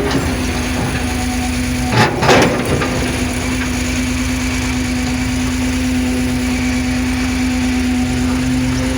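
Caterpillar 330 CL excavator's diesel engine running steadily with a constant hum, with a few sharp cracks and crunches about two seconds in.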